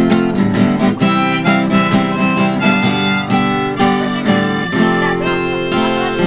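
Instrumental music: acoustic guitar strummed in a steady rhythm with a harmonica playing the melody over it.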